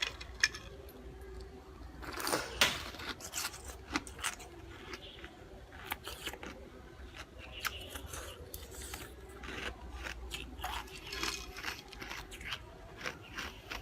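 A person chewing and crunching ice, with many sharp, irregular crunches.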